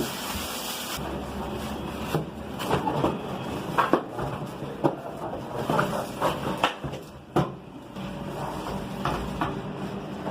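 Irregular knocks, clicks and rattles of a new microwave oven and its packaging being handled, over a steady low hum.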